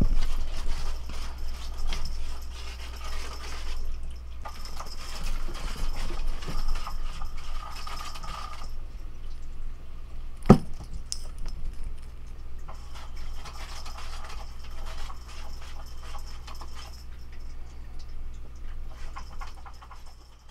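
A cat moving about on a wooden shelf: light scratches and small knocks, with one sharp knock about ten seconds in, over a steady low hum.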